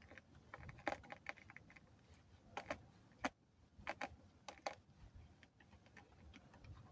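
Faint, irregular light clicks and taps of hands handling a laptop's plastic casing and small parts during reassembly, the sharpest about a second in and just after three seconds.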